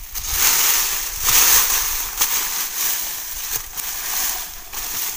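Dry bamboo leaf litter rustling and crackling as it is swept and scraped aside by a gloved hand and a long knife, clearing the ground to dig for bamboo shoots. The rustling comes in uneven surges, loudest in the first two seconds.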